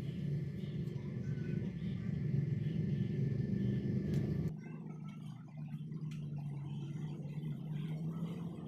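Low, steady rumble of a heavy hand-spun potter's wheel turning on its pivot while wet clay is shaped on it. About four and a half seconds in it drops suddenly to a quieter, steadier low hum.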